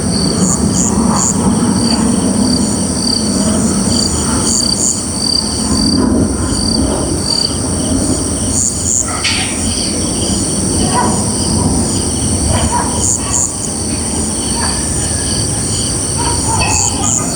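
Night ambience: crickets and other insects chirping in steady, high, pulsing trills over a constant low rumble.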